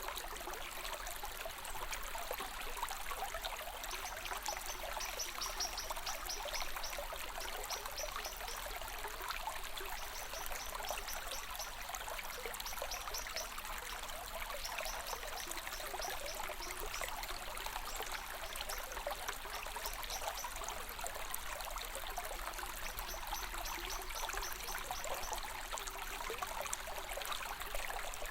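Stream of water trickling and flowing steadily. From about four seconds in, a high, fast chirping repeats over it in short runs.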